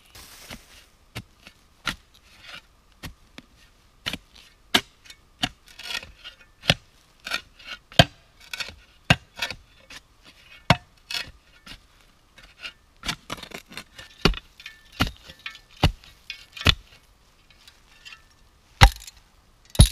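Steel spade digging into root-filled forest soil: a run of sharp, irregular chops, about one or two a second, with the blade scraping through dirt between strikes.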